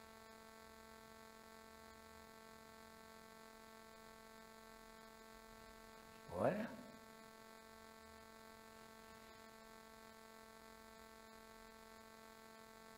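Faint, steady electrical hum: one unchanging buzzing tone with many evenly spaced overtones.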